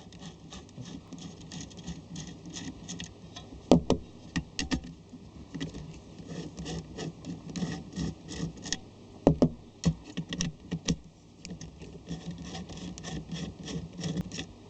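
Small nuts being unscrewed from terminal bolts on a metal lamp-holder plate: a run of light clicks and scraping, with louder knocks about four seconds in and again about nine seconds in.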